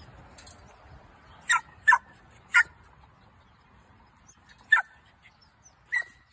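A small dog giving five short, sharp, high yips: three close together about a second and a half in, then two more spaced out near the end.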